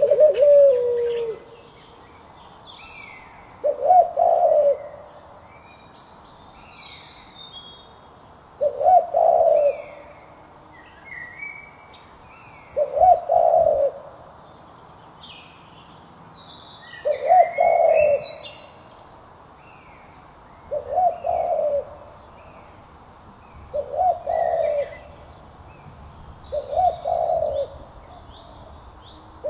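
A bird's low call, about a second long, repeated roughly every four seconds, with smaller birds chirping between the calls.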